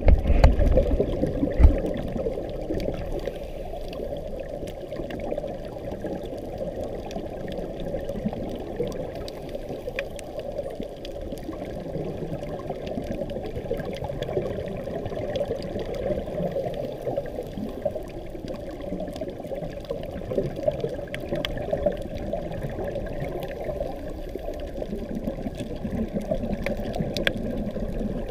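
Underwater sound picked up by a GoPro inside its waterproof housing: a steady, muffled rush of water with gurgling. It is louder for about the first two seconds and swells again near the end, with faint scattered ticks throughout.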